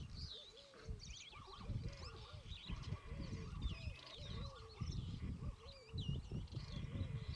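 Wild birds calling: a busy chorus of short high chirps and whistles over a lower call repeated about twice a second, with a low rumble beneath.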